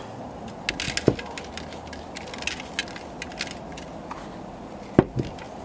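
Salt being sprinkled over raw lamb shanks in a roasting tray: a scatter of small light ticks as the grains land, with a single knock about a second in and a sharp click near the end.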